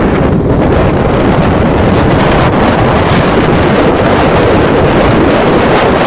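Strong wind buffeting the microphone, a loud, steady rumble.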